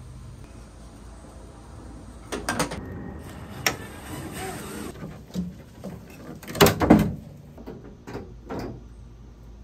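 A run of irregular clunks and clattering knocks from hand work with tools and metal parts on a pickup truck's bed and tailgate, the loudest pair about seven seconds in.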